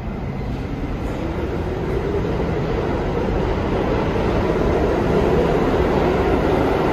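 New York City subway train running through the station, its noise growing steadily louder, with a whine that rises in pitch over the first few seconds and then holds.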